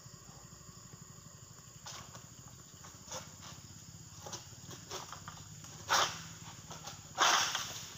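Oil palm fronds rustling and snapping as a long-pole harvesting sickle is worked in the palm crown, with short scrapes and cracks. There is a sharp crash about six seconds in and a louder, longer one about a second later.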